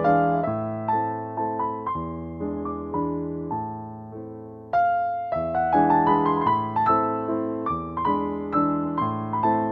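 Background music: solo piano playing a gentle melody with chords, pausing briefly around the middle before continuing.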